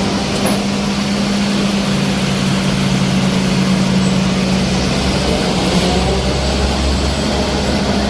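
Combine harvester running, a steady engine drone with mechanical noise.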